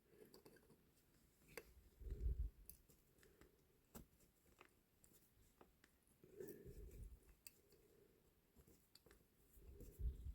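Faint, intermittent scraping and clicks of a large drill bit being twisted by hand against the rivet of a diecast toy car, with a few soft bumps from handling the parts.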